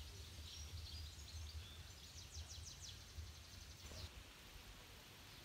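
Faint outdoor ambience: small birds chirping, including a short rapid trill about two to three seconds in, over a low uneven rumble that drops away about four seconds in.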